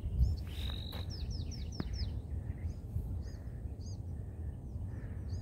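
A small bird chirping: a quick run of about five short, high chirps, then pairs of short chirps repeating every second or so, over a steady low rumble.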